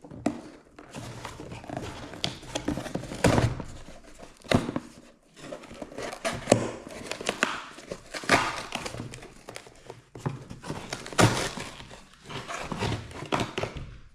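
Parcel packaging being handled and opened: irregular crinkling and rustling of plastic and paper, with knocks and thuds as items are taken out.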